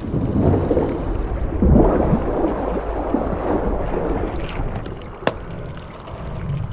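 Underwater ambience with a low rushing rumble of water and bubbling. A sharp click comes about five seconds in.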